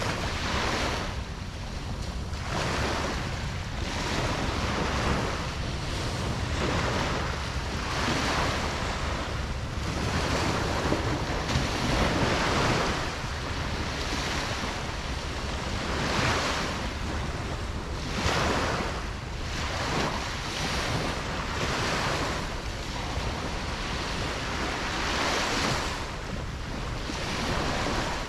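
Ocean waves breaking and washing on a beach, a continuous surf with swells every second or two over a steady low rumble of wind on the microphone.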